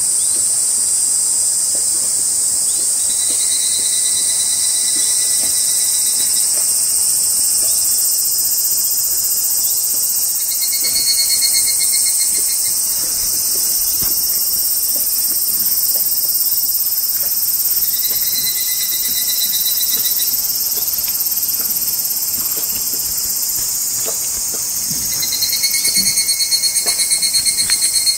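Cicadas singing in the tree canopy: a loud, steady high-pitched chorus, with a lower, rapidly pulsing call that comes and goes in phrases a few seconds long, four times.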